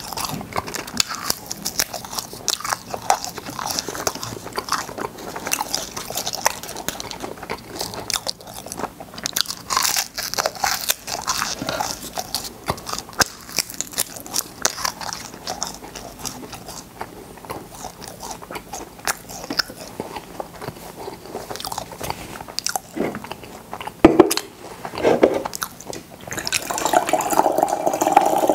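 Close-miked crunching and chewing of hard cola-flavoured 'space candy' discs, a run of short brittle cracks between bites. A single sharp knock about 24 seconds in, and a steadier rushing sound that starts near the end.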